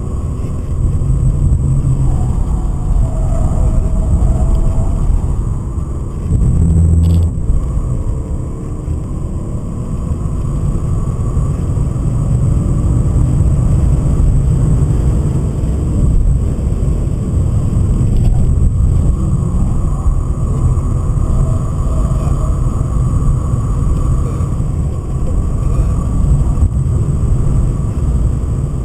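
A BMW 528i's M52B28 2.8-litre straight-six, heard from inside the cabin under hard track driving, with road and tyre rumble. The engine note swells and eases with the throttle, and there is a short sharp click about seven seconds in.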